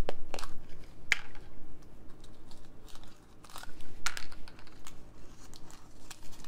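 Hands handling a small clear plastic case and unwrapping tissue paper. Scattered small clicks and paper crinkles, the sharpest just after the start and about four seconds in.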